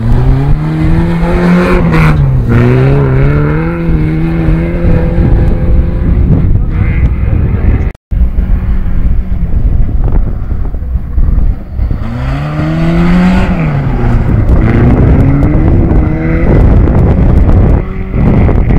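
Volvo 360 rallycross car's engine revved hard through a loose gravel corner, its pitch climbing and dropping with throttle and gear changes over a rush of gravel and tyre noise. The sound breaks off for a moment about eight seconds in, and a second pass follows about four seconds later with the engine again rising and falling.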